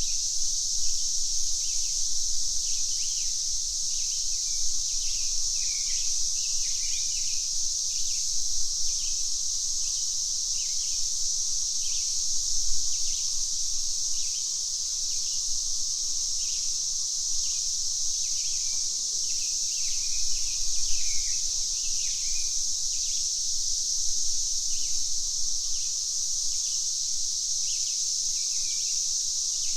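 A chorus of cicadas buzzing steadily and high, with birds giving short chirps again and again over it.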